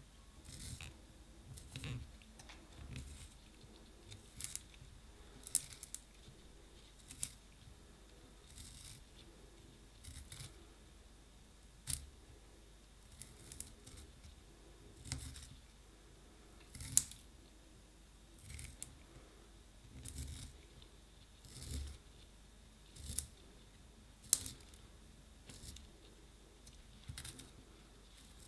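Wooden pencil being turned in a small handheld plastic blade sharpener. The blade shaves the wood in short rasping strokes with sharp clicks, about one every second and a half.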